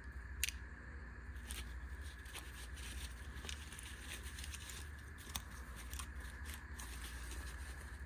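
Small everyday-carry items being handled and packed into a fabric pouch: scattered clicks, rustles and crinkles over a steady low hum.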